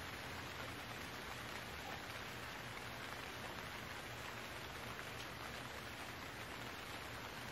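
Steady rain falling, an even hiss dotted with many small drop ticks.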